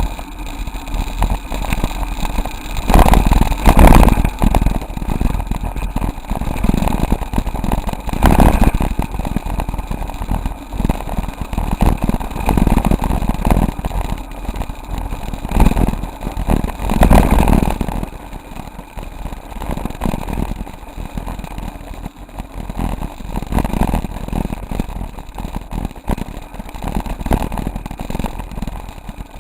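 Waterfall: a loud, continuous rush of falling water that swells louder several times, heaviest in the low rumble.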